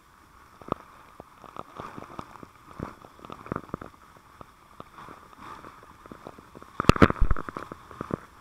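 Hose-stream water spray striking a helmet-mounted camera in irregular clicks and taps over a steady hiss, with a loud cluster of knocks about seven seconds in.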